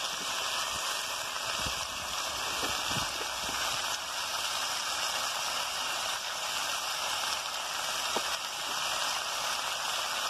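Ivy gourd and potato pieces sizzling steadily as they fry in oil in a wok, with a few faint taps of a steel spatula.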